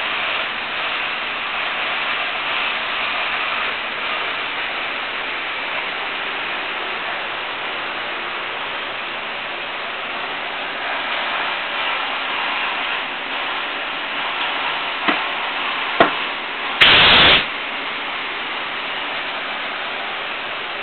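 Pneumatic lens deblocker with a steady hiss. Two short clicks come about fifteen and sixteen seconds in, then a loud half-second blast of air about seventeen seconds in.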